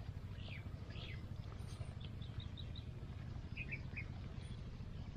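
Small birds chirping in short high calls: a couple of falling chirps about half a second in, a quick run of about five notes around two seconds, and a few more near four seconds. A steady low rumble lies underneath.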